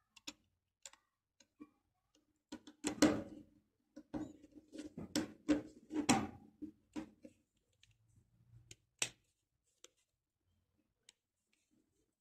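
FDM 3D-printed plastic iris mechanism worked by hand: sharp plastic clicks, with a dense run of rattling and scraping clicks in the middle as the top cover is turned and the blades slide across the opening.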